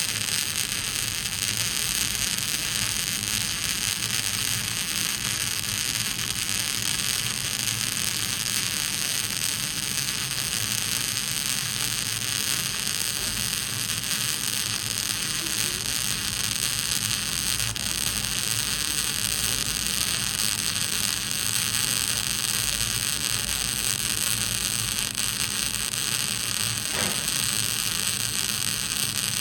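Electric arc welding in progress: a steady, unbroken hiss and crackle of the arc.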